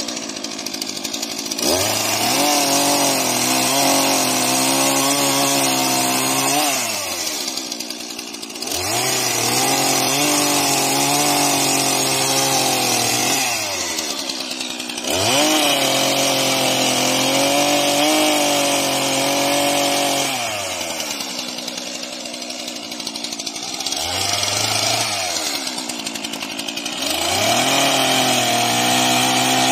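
Stihl MS 231 two-stroke chainsaw cutting maple: it runs at high revs through several cuts of about five to six seconds each, dropping back toward idle between them and then revving up again.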